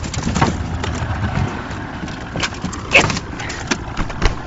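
Scuffle between a goose and a dog in a boat: repeated knocks and thumps with rough handling noise on the phone, and one short high cry about three seconds in.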